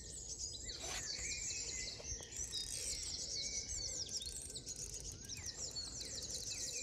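Dawn chorus: many songbirds singing at once, a dense run of overlapping high chirps and trills.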